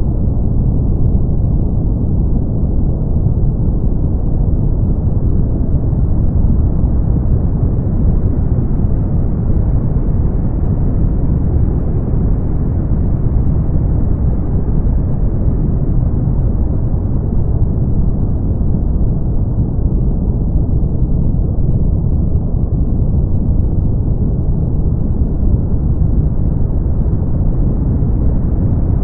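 Brown noise: a steady, deep hiss with no tones in it, its brighter upper part slowly swelling and fading back over many seconds.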